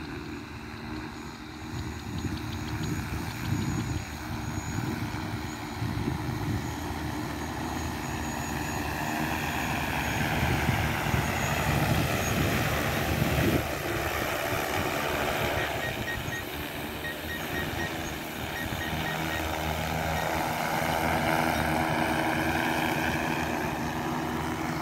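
Large multirotor agricultural spraying drone in flight: the steady hum of its rotors, growing louder and shifting in pitch as it passes close by about halfway through, and loud again near the end.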